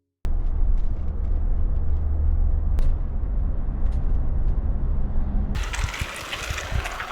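A loud, steady low rumble, then, about five and a half seconds in, a sudden change to the even rushing hiss of a flowing stream.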